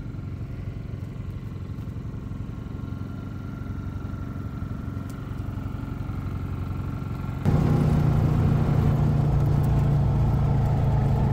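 An engine running steadily with a low hum; about seven seconds in it becomes suddenly louder and stays that way.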